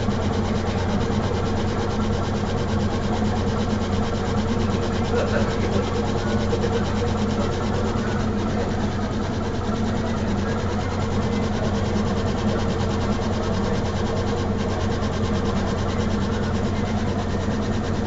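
A small power tool motor running steadily with a constant hum and a grinding, rubbing texture while working on an airsoft pistol.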